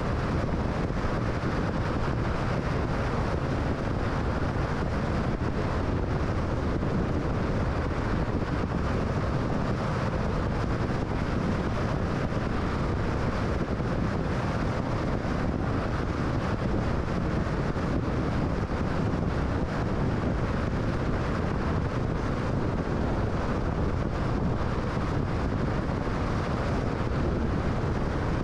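Car driving on the interstate: steady road and wind noise with a low rumble, unchanging throughout.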